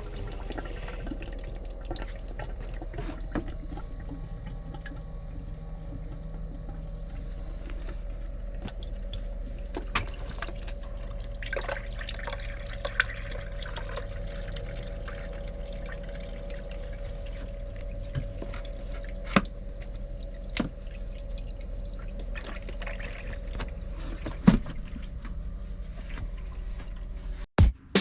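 Water trickling and dripping into a container over a steady low hum, with scattered small clicks and drips.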